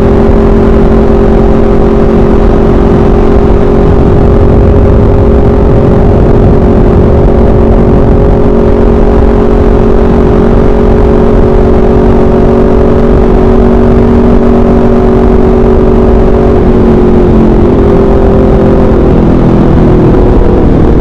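Motorcycle with an SC Project aftermarket exhaust running at steady cruising revs, the engine note sagging slightly, then falling in a few steps near the end as the revs come down.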